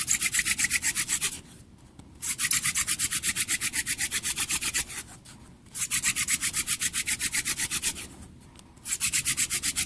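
Hand drill for friction fire: a mullein spindle twirled fast between the palms against a cedar fireboard, a rapid pulsing rub of wood on wood in four runs with short pauses between. The spindle is burning in its socket so spindle and board match up.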